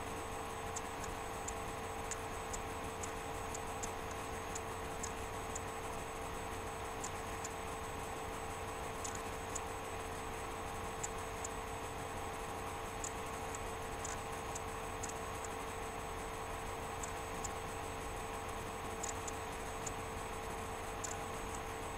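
Steady electrical hum with faint, light high ticks a few times a second at uneven spacing.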